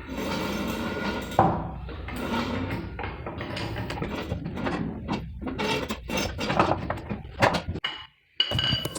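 Irregular metallic knocks, clinks and rattles of tools and car suspension parts being handled, with a ringing metal clink near the end.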